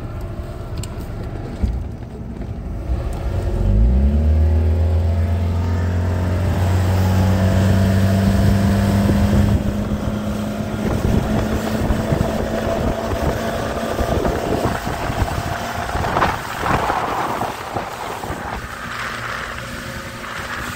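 120 hp OMC engine of an 18-foot runabout rising in pitch about three seconds in as the throttle opens, then running steadily at speed. Wind buffets the microphone, strongest in gusts near the end.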